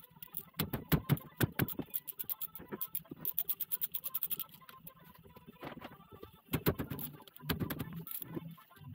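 Hand tools clicking and knocking on the metal parts of a twin-cylinder truck air compressor being taken apart, in quick runs of sharp clicks with short pauses between, busiest in the first half and again near the end.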